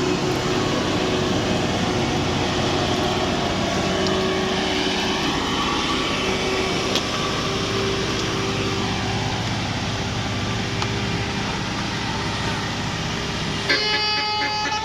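A heavy bus engine running steadily under load on an uphill bend. About a second before the end, a multi-tone telolet horn starts playing a stepping melody.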